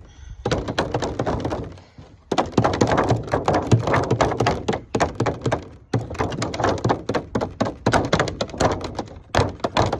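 Thin plastic food packaging crackling and cracking as holes are punched through it, a dense run of sharp irregular snaps with a few brief pauses.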